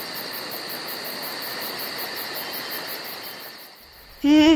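Crickets chirping in a fast, even pulse, about five a second, over a steady hiss; it fades out near the end.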